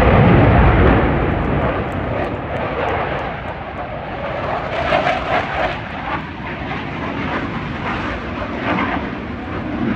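Aircraft flying past at an air show: a loud engine roar that peaks in the first second, then eases off but carries on.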